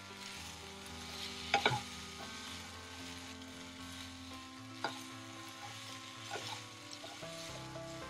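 Chicken pieces being stirred with a spatula in a frying pan and sizzling, with a few sharp knocks of the spatula against the pan, the loudest about one and a half seconds in and near five seconds in.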